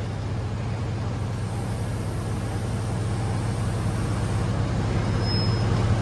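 Forklift running with a steady low engine hum that grows slowly louder, as it holds and lowers a vertical baler on its forks.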